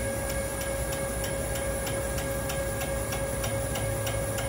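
CNC lathe running with a large steel saver sub spinning in its chuck: a steady machine whine with several held tones and a regular ticking about three times a second.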